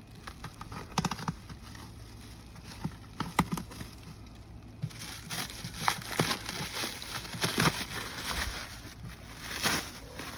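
New ATV tires being unwrapped and handled: packaging plastic crinkling, with scattered sharp knocks and taps.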